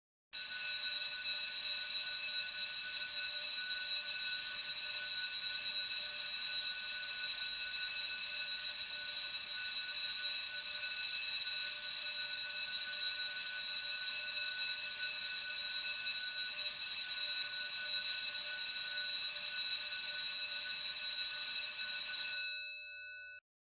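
School bell ringing continuously and steadily, with a bright, metallic tone, for about 22 seconds. It then stops, its tones dying away over about a second.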